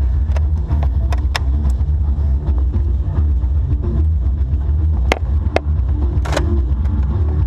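Heavy low rumble on a GoPro action camera's microphone, with about six sharp clicks scattered through it; the loudest, longer crack comes about six seconds in.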